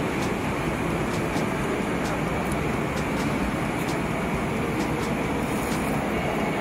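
Steady roar of the air inside a large exhibition hall, with a few faint ticks over it.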